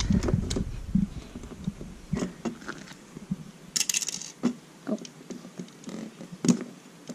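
Lego bricks being handled and pressed together: scattered small plastic clicks and taps, with dull bumps in the first two seconds and a brief rustle about four seconds in.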